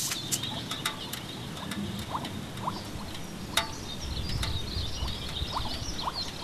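Outdoor field ambience: a steady hiss with faint high twittering and a few short squeaky chirps, one sharp click about three and a half seconds in, and a low wind rumble on the microphone building in the second half.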